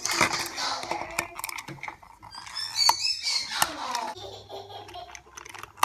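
Plastic toy train engine being handled and set down on a wooden table: scattered light clicks and knocks, with a few brief high squeaks about three seconds in and a sharp click at the very end.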